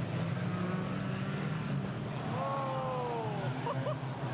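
Banger racing cars' engines running together in a steady low drone. About two seconds in, a pitched sound rises briefly and then falls away over a second.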